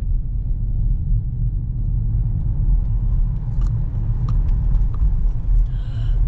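Steady low rumble of a car driving along a city street, heard from inside the cabin, with a few faint ticks in the middle.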